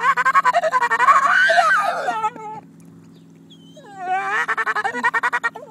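A dog making long, warbling howl-like yowls set off by a passing boat, in two bouts with a pause between them; the pitch wavers up and down with a rapid flutter. The second bout starts about four seconds in.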